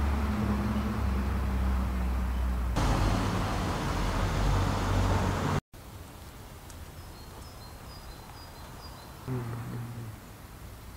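Street traffic noise with a steady low engine hum. It cuts off abruptly about halfway into quieter outdoor background, where a short run of faint, high bird chirps follows.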